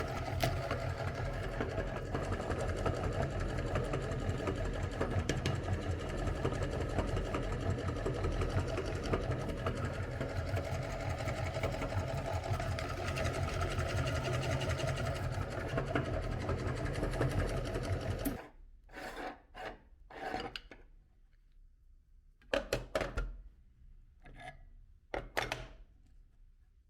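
Electric meat grinder running steadily as it grinds ice cream, then switched off about eighteen seconds in. A few short knocks and rustles of handling follow.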